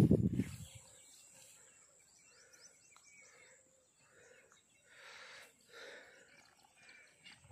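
Faint small birds chirping over quiet outdoor air, with a few soft swishes about two-thirds of the way in. A burst of low knocks and rumble fades out within the first second.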